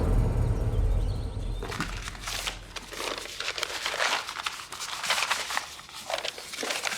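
A low rumble dies away over the first second or so, then a dense, irregular crackling and rustling takes over.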